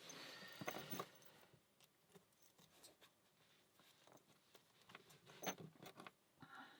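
Faint clicks and light rustling as small brass padlocks and their keys are handled, with a few sharper clicks about five to six seconds in.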